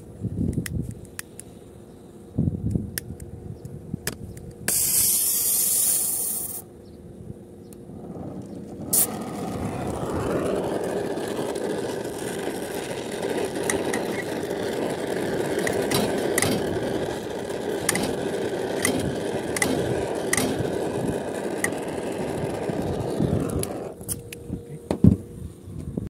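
Brazing torch flame running steadily as it heats the copper refrigerant pipe joints to unsolder an old air-conditioner compressor; it starts with a sharp click about nine seconds in and cuts off near the end. A short loud hiss comes about five seconds in.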